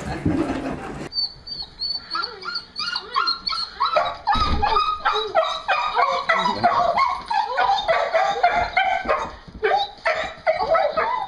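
A beagle-type dog whining and yelping in a rapid string of short, high-pitched cries, the excited noises of a dog greeting its returning owner.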